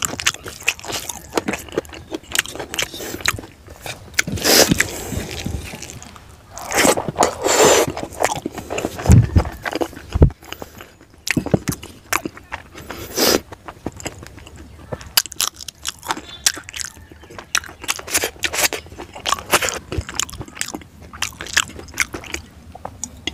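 Close-up chewing and crunching with wet mouth smacks, from a person eating rice and fried fish and pork by hand. There are two sharp, loud knocks near the middle.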